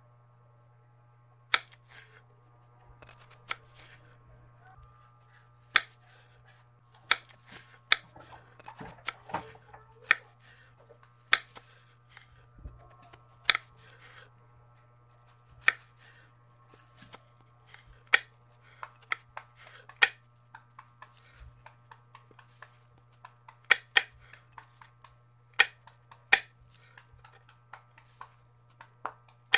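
Santol rind being cut with a knife: a string of sharp, irregular clicks and crunches as the blade works through the thick peel. A steady low hum runs underneath.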